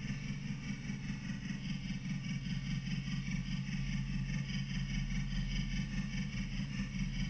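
Wilesco toy steam engine running at speed: its small oscillating cylinder chuffs in a fast, even beat as the flywheel spins, over a steady hiss.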